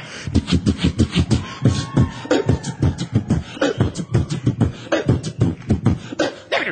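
Beatboxer performing into a handheld microphone: a vocal drum beat of deep kick-like thumps and sharp snare-like clicks, about three to four hits a second.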